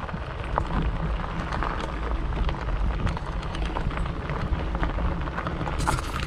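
Handling and rustling noise on a body-worn camera's microphone as the wearer pushes along through grass and brush. A steady low rumble runs under dense crackling of leaves and stems rubbing against it, with a louder burst of rustling near the end as the camera is covered.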